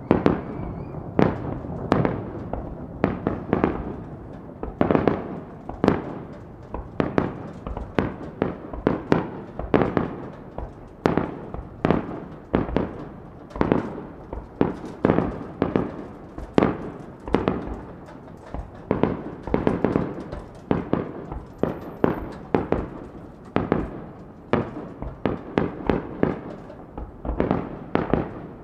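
Aerial firework shells bursting in quick succession: a dense run of sharp bangs, at times several a second, with a low rumble between them.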